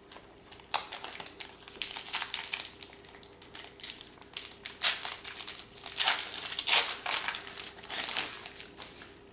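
Crinkling of a trading-card pack wrapper being handled, in a run of irregular crackles that are loudest past the middle.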